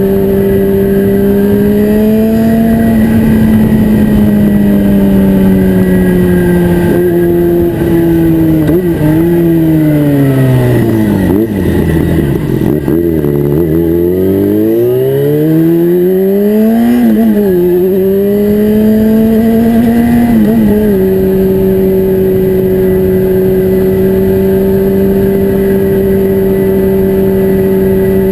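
Yamaha FZ6's 600 cc inline-four running through an Atalla aftermarket exhaust, held at steady revs. In the middle the engine speed sinks slowly over several seconds, then climbs back up and holds steady again.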